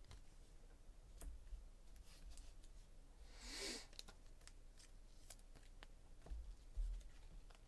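Faint handling of trading cards: scattered light ticks and rustles as cards are sorted on the table. There is a brief soft hiss about three and a half seconds in.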